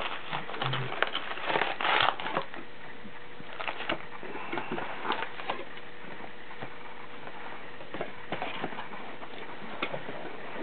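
Trading card packaging being handled and opened by hand: irregular rustling, crinkling and tearing of the retail box's cardboard and foil packs, loudest about two seconds in.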